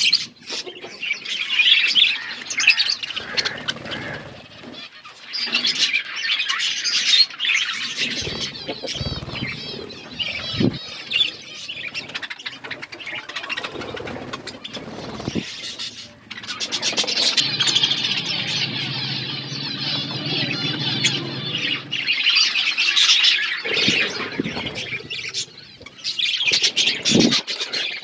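Budgerigars chirping and warbling in a continuous busy chatter, with a few brief low thumps.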